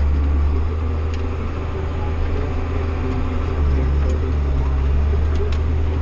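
John Deere 7800 tractor's diesel engine running steadily under way, heard from inside the cab as a low drone. It eases off slightly about half a second in and picks back up around three and a half seconds, with a few faint cab rattles.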